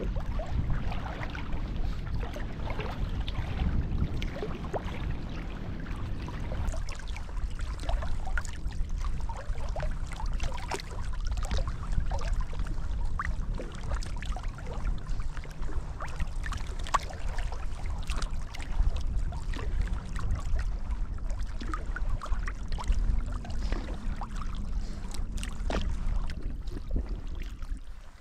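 Kayak moving through choppy lake water: small splashes and drips of water against the hull and paddle over a steady low rumble.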